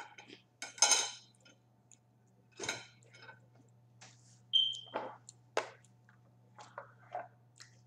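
Scattered table and eating noises: clicks and clinks of a fork against a plate and the crackle of a thin plastic water bottle as it is drunk from, with one brief high squeak about halfway through.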